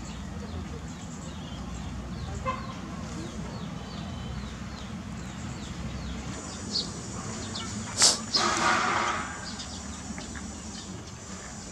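Garden ambience with many short, high bird chirps over a low steady hum. About eight seconds in there is a sharp click, followed by a noisy rustle that lasts about a second.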